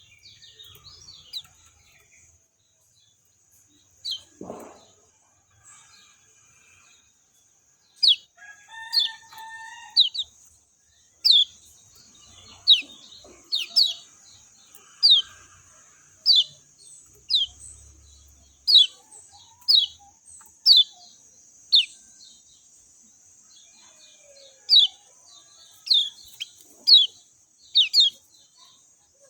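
Kecial kuning, a small white-eye songbird, giving repeated short, sharp chirps that fall in pitch, about one a second from about a quarter of the way in, with softer scattered calls before. A steady high hiss runs beneath.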